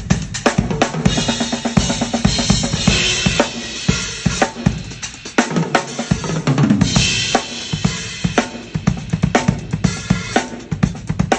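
Drum kit played at a fast pace: rapid bass drum, snare and tom strokes, with cymbal crashes washing over them about a second in and again a little past the middle.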